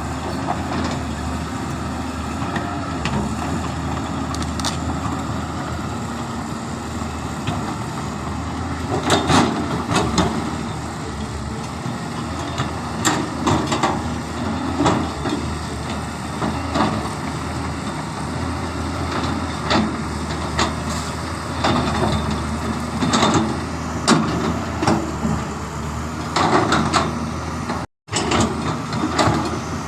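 Excavator's diesel engine running steadily, with irregular metallic knocks and clanks from about nine seconds in. The sound drops out for a moment near the end.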